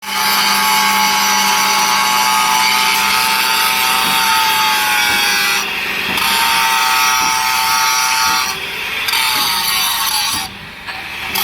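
Hydraulic vertical baling press running: a loud, steady, high-pitched machine whine over a low hum, its pitch drifting slightly down and briefly dropping away three times in the second half.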